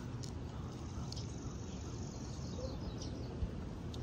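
Wind buffeting the microphone, a steady low rumble, with a few faint high ticks scattered through it.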